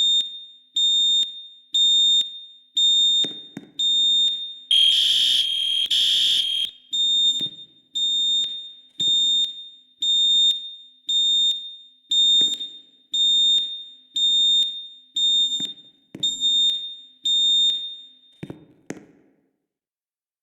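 Fire alarm sounding a high tone in pulses about once a second, each pulse fading away. About five seconds in there is a louder, fuller blast lasting about two seconds. The alarm stops shortly before the end, as it is silenced during testing.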